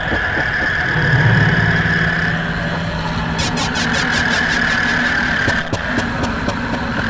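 Recorded album track of dense droning noise. A steady high whine runs throughout, a low hum swells in about a second in and fades out near the middle, and a run of rapid clicking comes a little after the middle.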